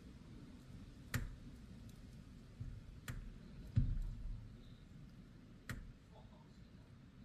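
Three sharp clicks, spaced about two seconds apart, with a couple of duller low thumps between them over a steady low rumble.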